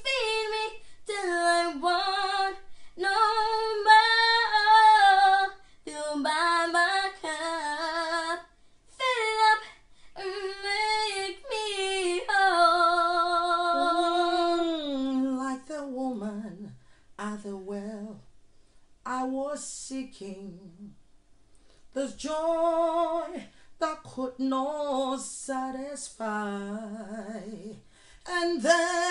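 Female voices singing a worship song unaccompanied, long held notes with vibrato in phrases broken by short pauses, with a lower, quieter stretch about two-thirds of the way through.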